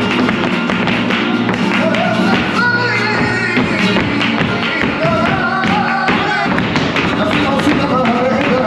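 Flamenco music: a singer's wavering, sliding melody over a dense run of sharp percussive taps.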